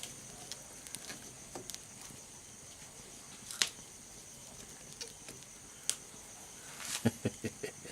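Quiet background with a faint steady high hiss and scattered sharp clicks, the loudest about three and a half seconds in, then a quick run of clicks and taps near the end.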